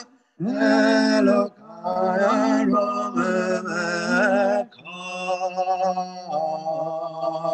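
A man singing a Jewish prayer melody solo and unaccompanied, in three long phrases with short breaks for breath.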